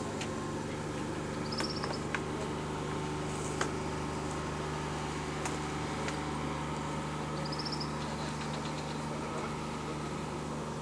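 Tractor engine running steadily with an even low hum as the machine drives through a flooded paddy. Two short, high trills sound over it, about a second and a half in and again near eight seconds.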